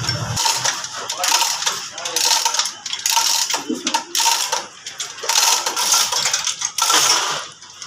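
Hand-pulled chain hoist rattling and clinking in repeated bursts, roughly one a second, as it lifts a car engine out of its bay.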